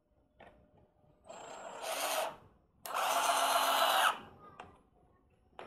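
Cordless drill driving a wood screw into a wooden block in two runs: a short one that builds up, then a longer, louder one about three seconds in. Faint handling clicks come before and after.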